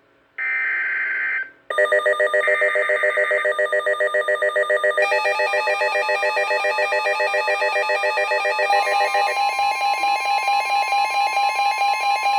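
Emergency Alert System header on NOAA Weather Radio: a second-long burst of screeching digital SAME data, then a weather radio's electronic warning alarm, a fast warbling beep. A steady alert tone joins about nine seconds in.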